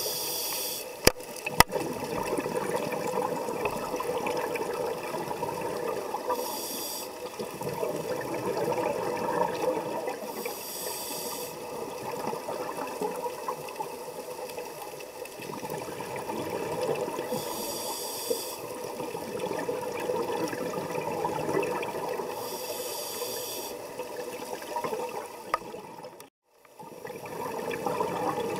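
Underwater scuba breathing: exhaled bubbles from a regulator burst out for about a second every five to six seconds over a steady watery rushing. There are two sharp clicks about a second in, and the sound drops out briefly near the end.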